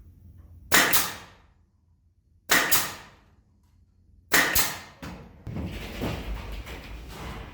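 Three sharp bangs about two seconds apart, each a quick double crack that rings briefly, typical of fastening work on a timber frame. These are followed by a stretch of lower knocking and scraping.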